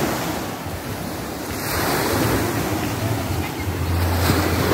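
Small waves breaking and washing up a sand beach, with wind buffeting the microphone as a low rumble.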